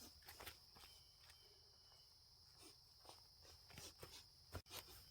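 Near silence: a faint steady high-pitched hiss with scattered soft clicks and a sharper click near the end.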